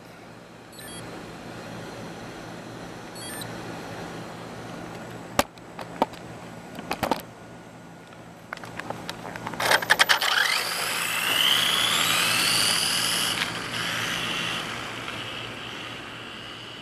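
Electric RC car's motor, running on an 11.1 V LiPo, launching on a top-speed run: a high whine that climbs steadily in pitch for about three seconds as the car accelerates away, then fades. Before it come a few handling clicks and knocks.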